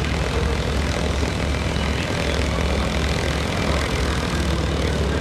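Yakovlev Yak-55 aerobatic planes' nine-cylinder radial engines running at idle as they taxi, a steady low propeller drone.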